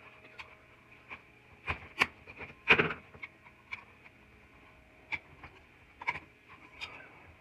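Scattered light clicks and knocks from small objects being handled, with a louder short rattle about three seconds in.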